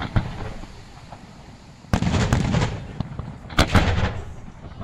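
Senatore Fireworks aerial shells bursting: a loud bang about two seconds in followed by a run of quick crackles, then a second bang about a second and a half later with a low rumble that fades away.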